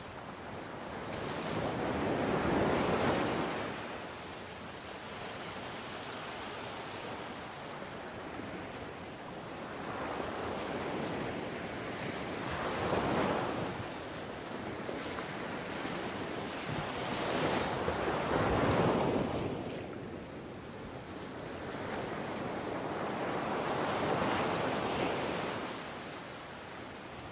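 Ocean surf: waves breaking and washing up, rising into a loud rush four times and falling back between them, the loudest surge about two-thirds of the way through.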